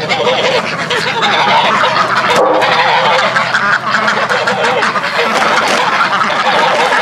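A flock of domestic ducks quacking loudly and without pause, many calls overlapping: the birds are agitated and clamouring for feed.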